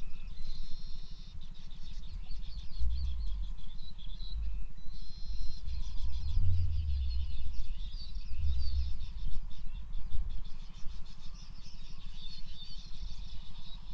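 Steady high-pitched chirping of insects and birds outdoors, over uneven low thuds and rumbling that swell a few times.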